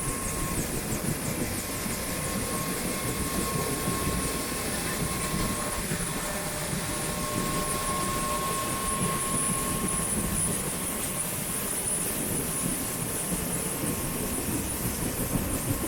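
Bell UH-1H Huey helicopter's Lycoming T53 turboshaft engine idling on the ground: a steady high turbine whine over a rumbling rush, the loudness pulsing a little faster near the end.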